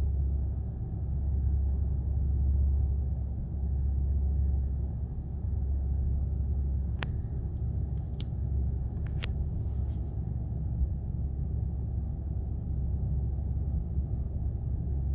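Ford 6.8-litre V10 engine idling with a steady low rumble; the engine has a misfire. A few sharp clicks sound about halfway through.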